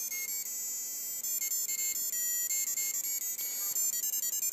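Electronic LED star kit's sound circuit playing a beeping ringtone-like tune, a quick run of short high notes one after another. It plays weaker than it usually does because its batteries are wearing down.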